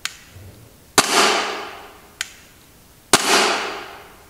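Tokyo Marui S&W M&P9 gas-blowback airsoft pistol dry-fired with the slide closed: two sharp snaps of the internal hammer falling, about two seconds apart, each ringing away over about a second. Lighter single clicks in between are the trigger resetting.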